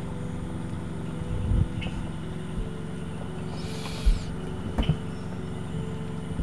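Background film music: sustained low synth chords held under the drama, with one note shifting partway through and a few faint low knocks.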